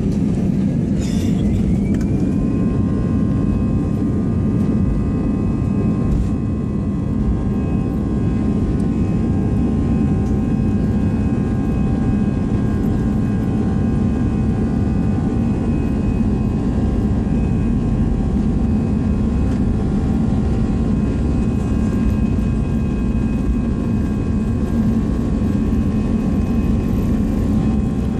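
Cabin noise of an Airbus A320 rolling on the runway: a steady, heavy low rumble from the jet engines and airframe. Over it sits a thin engine whine made of several tones, which rises in pitch about a second or two in and then holds steady.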